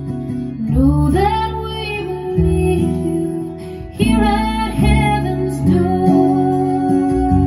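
A song played back through JBL 4344 loudspeakers driven by a Sansui AU-D907F amplifier: a female voice singing over plucked-string accompaniment, with new sung phrases entering about one second and four seconds in.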